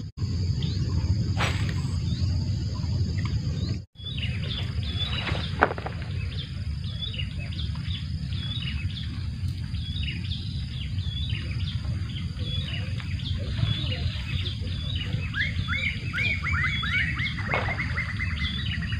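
Birds chirping repeatedly in short high calls over a steady low rumble, with a run of quick trilled chirps falling slightly in pitch near the end. The sound cuts out briefly about four seconds in.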